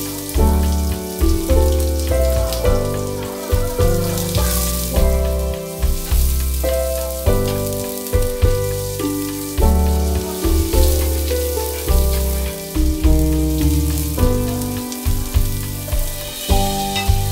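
Chopped onion sizzling as it fries in hot oil in a pan, under background music with a steady beat.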